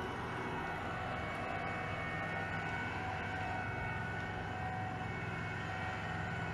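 Cat asphalt paver's diesel engine running steadily, a constant drone with a thin high whine over it.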